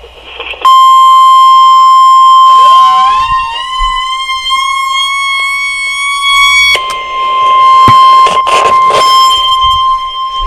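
NOAA Weather Radio alarm tone through a radio's speaker: a loud, steady, distorted beep near 1 kHz that starts under a second in. A second tone joins about two and a half seconds in, rises and holds just above it, and cuts off about seven seconds in.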